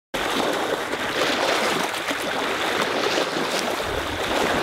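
Steady, loud rushing noise with no clear pitch or rhythm, starting abruptly at the very start.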